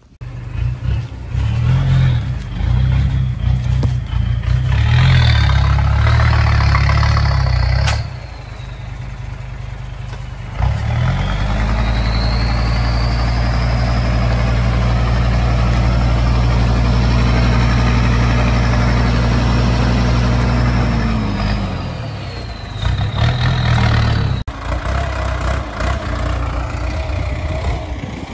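Dump truck's diesel engine revving and easing off for the first several seconds. About ten seconds in it rises and is held at high revs with a high whine for about ten seconds while the bed tips its load of soil, then drops back. It revs briefly again near the end.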